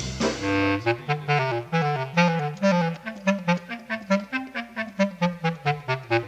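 Background instrumental music: a melody of quick, short notes over a bass line that steps up and down.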